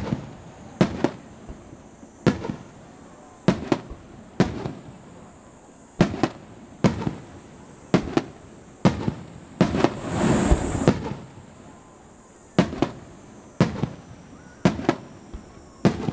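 Aerial firework shells bursting in sharp bangs, one or two a second, often in quick pairs. About ten seconds in, a rapid cluster of bangs and crackling runs for about a second.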